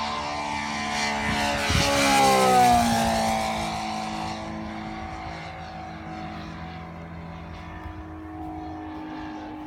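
Twin Saito FG-90R3 three-cylinder four-stroke radial engines of an RC Tigercat model plane flying past. The engine note swells to its loudest about two to three seconds in and drops in pitch as the plane passes, then fades to a steadier, quieter drone.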